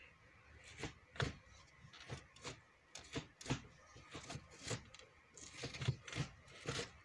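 Manual gear lever of a 2001 Honda Accord being shifted through the gears, with short clicks and clunks as it drops into each gate, roughly two a second and irregular. The lever has a homemade short-shift modification, with the shift-rod pivot moved up to shorten the throw.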